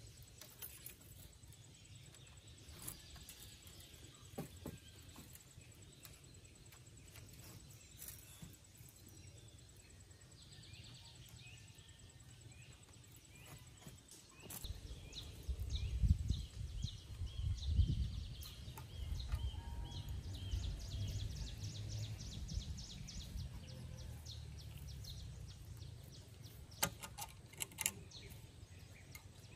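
Quiet rural outdoor ambience with birds chirping, including a quick run of repeated high calls. About halfway a low rumbling noise comes in and becomes the loudest sound, and a few sharp clicks come near the end.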